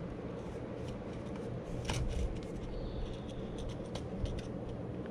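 Small metallic clicks and scrapes as a new perforated bypass oil filter element is lowered into its metal canister and its cap pressed down by hand. The loudest rattle comes about two seconds in, with more light clicks after.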